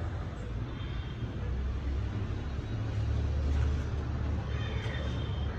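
Low steady rumble of passing road traffic, swelling in the middle, with faint high thin tones and a short rising squeak near the end.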